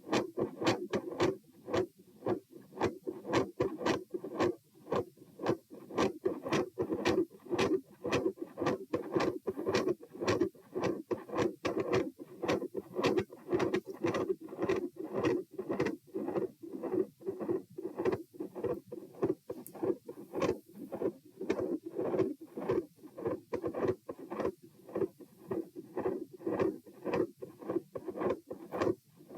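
Human heartbeat heard on the chest: a regular run of lub-dub heart sounds with a machinery-like murmur around the second heart sound, which the recorder likens to the murmur of a patent ductus arteriosus (PDA). The murmur fades in and out between the beats.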